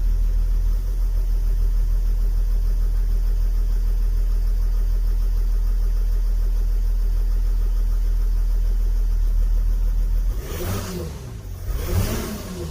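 Mercedes OM642 3.0 V6 turbodiesel running steadily at idle, then revved up and down a couple of times about ten seconds in. Its rattle is what the owner is trying to pin on either the high-pressure fuel pump or the injectors; it stops when the pump's pressure regulator solenoid is unplugged.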